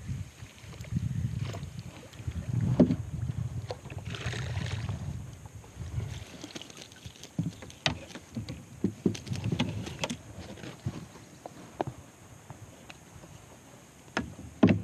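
A hooked cutthroat trout being brought in and landed: water splashing and sloshing with handling noise, plus scattered sharp clicks and knocks.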